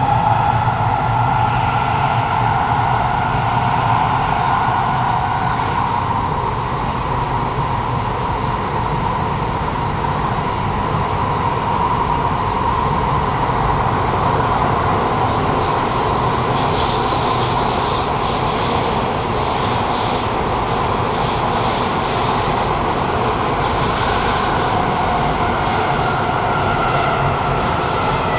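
Kawasaki Nippon Sharyo C751B metro train running between stations, heard from inside the car: a steady whine from the traction motors over the rumble of the wheels on the track. The motor noise is fairly loud, a slight 'strong motor'. From about halfway a hissing rattle comes and goes, and near the end the whine's pitch shifts as the train slows for the next station.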